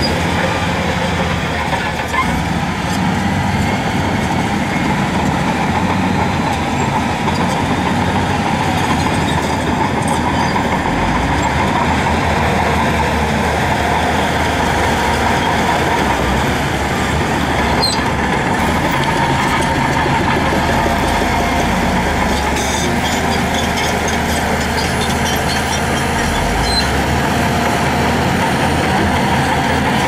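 Heavy diesel earthmoving machinery running loud and steady, its low engine note shifting every few seconds.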